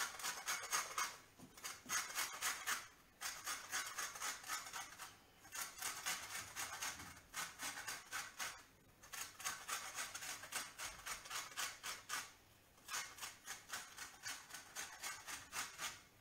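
Orange rubbed against a metal hand grater, zesting the peel: quick rasping strokes in runs of a few seconds, with short pauses between runs.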